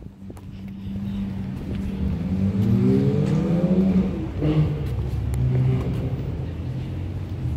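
A car engine accelerating: its pitch climbs for about two seconds, drops suddenly about four seconds in, then the engine runs on steadily at a lower pitch.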